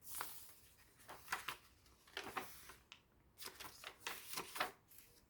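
Paper pages of a handmade junk journal being turned and handled, a few soft rustles and brushes, the last ones coming close together.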